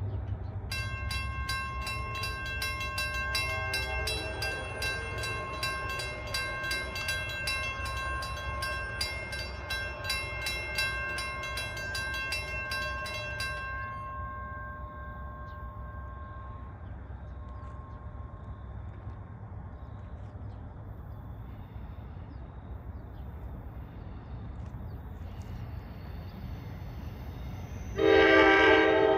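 Two Western Cullen Hayes mechanical crossing bells ringing with rapid, even strokes, stopping about 14 seconds in once the gates are down. A low rumble runs underneath, and near the end a train horn sounds loudly.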